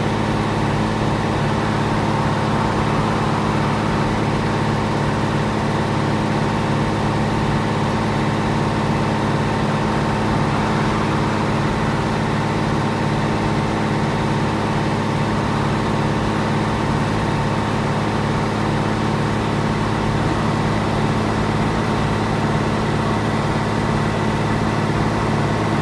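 Scania L113CRL bus's rear-mounted 11-litre six-cylinder diesel engine idling steadily, heard from inside the saloon, with no revving or gear changes.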